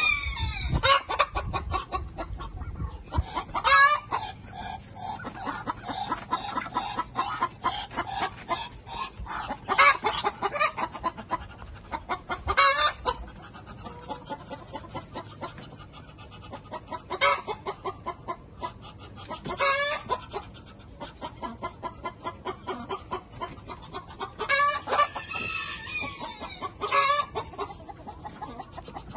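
Chickens clucking, with louder calls breaking in every few seconds.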